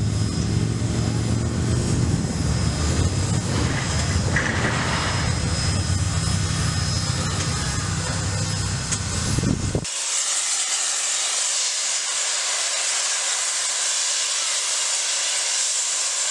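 Nickel Plate Road 765, a 2-8-4 Berkshire steam locomotive, gives a steady low mechanical rumble. About ten seconds in this switches abruptly to a loud, even hiss of escaping steam.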